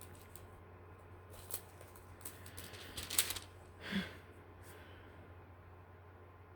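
Bible pages rustling and crackling as they are turned to find a verse: a few quick crackles over about two seconds, then a short soft sound, over a faint steady hum.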